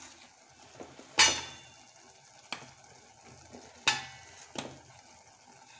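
Four sharp metallic clinks of a utensil against a metal cooking pot, the first the loudest, two of them ringing briefly. Under them is a faint sizzle of mushrooms and onions frying in the pot.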